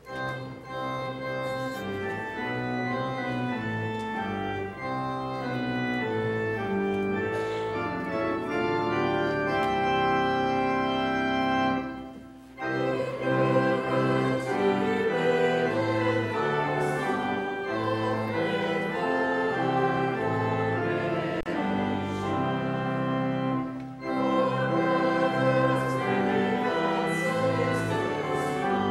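Church organ playing a slow hymn in held chords, with voices singing along. The music breaks off briefly between phrases, about twelve and twenty-four seconds in.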